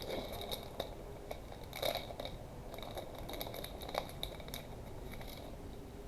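Foil trading-card pack crinkling and rustling as it is handled and opened by hand, with a few sharp snaps about two and four seconds in.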